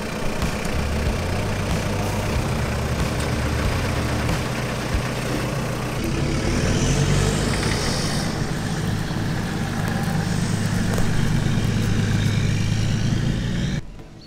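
Engines of off-road 4x4 trucks, a Toyota and a Nissan Patrol, running as they drive slowly over grass. The engine sound grows louder about six seconds in, as the Patrol comes closer, and cuts off suddenly near the end.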